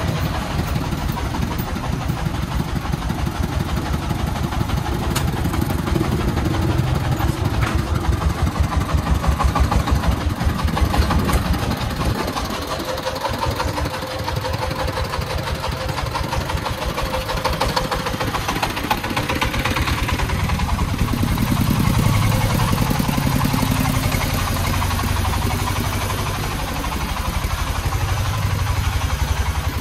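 24-horsepower single-cylinder diesel engine of a three-wheeled công nông truck chugging close by as the loaded truck creeps along, its beat quickening and swelling with the throttle a few times.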